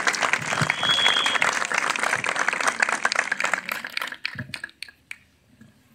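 A crowd applauding. The dense clapping thins out about four seconds in, leaving a few last separate claps before it stops.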